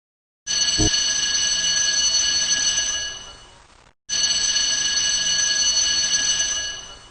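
A bell ringing like an alarm, twice: two identical rings of about three seconds each, each fading out at its end.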